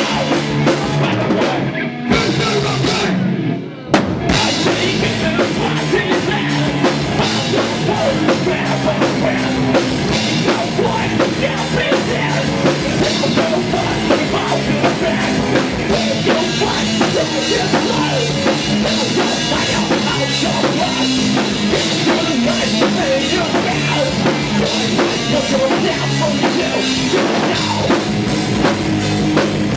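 A heavy metal band playing live and loud, with drum kit, distorted guitars and bass. There is a brief break about four seconds in, then the full band comes back in.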